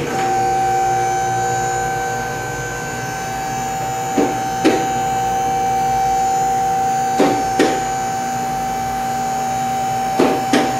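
A motor-driven machine running with a steady high whine, switched on at the start, with three pairs of short sharp knocks over it.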